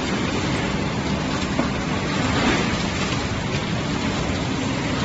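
Wanlong QYG-160 automatic fish filleting machine running steadily, its motor and cutters mixed with the hiss of spraying water.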